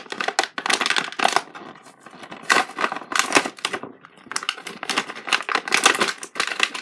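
Plastic toy packaging being torn and crinkled open by hand: a dense, irregular run of crackling rustles with brief pauses.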